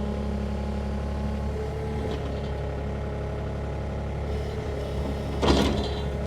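Sany mini excavator's diesel engine running steadily. A brief louder scrape or clunk comes about five and a half seconds in.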